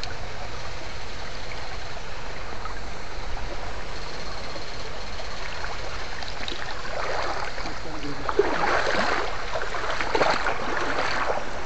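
Shallow stream running over rocks, a steady rushing of water, with louder irregular splashing in the second half as someone wades through it.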